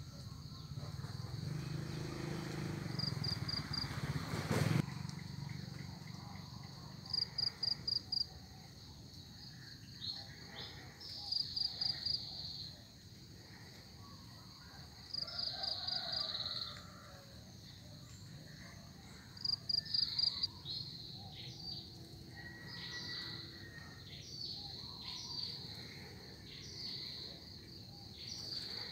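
Insects chirping in short bursts of four or five quick pulses every few seconds, with birds calling. A low rumble fills the first few seconds and ends in a sharp knock.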